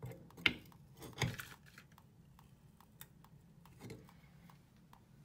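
Adjustable spanner working the tap's spindle assembly tight into the tap seat: a few short metallic clinks and knocks of the spanner on the fitting, the sharpest about half a second in, another about a second in and a softer one near four seconds.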